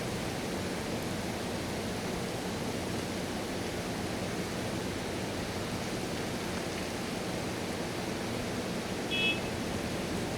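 Steady, even rain falling in a city. About nine seconds in there is one short, high beep.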